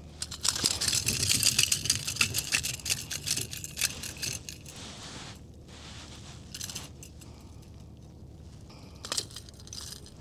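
Crackling, rattling handling noise with many small clicks for about four seconds, then quieter scattered clicks and light jangling, as a hooked largemouth bass is brought in and handled on a kayak.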